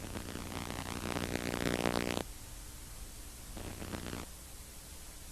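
Harsh, distorted electronic buzzing that cuts off suddenly about two seconds in, with a shorter burst of it near the end, over steady static hiss and a low hum.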